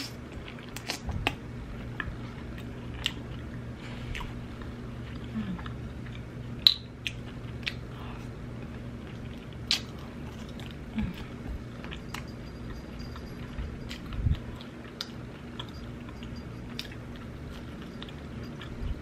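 Close-miked chewing and biting of barbecue-sauced rib meat pulled off the bone with the teeth, with wet mouth smacks and clicks scattered throughout. The sharpest click comes about a third of the way in.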